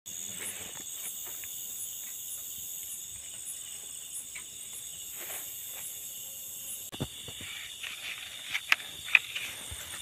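Night insect chorus of crickets, trilling steadily and high-pitched around rice fields. A few sharp clicks break in during the last three seconds and are the loudest sounds.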